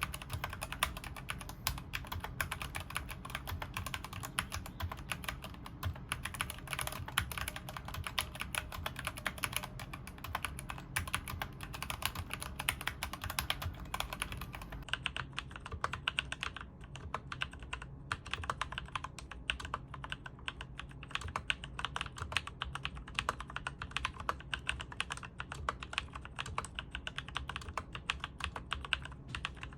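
Fast typing on a mechanical keyboard, a dense run of key clicks and clacks. About halfway through the sound changes to a duller, less crisp typing sound, as a second keyboard is tried for comparison.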